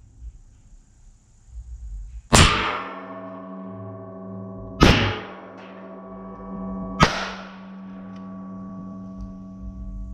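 Three loud, sharp hits about two and a half seconds apart, each followed by a long ringing tone that fades over a couple of seconds, over a steady musical drone.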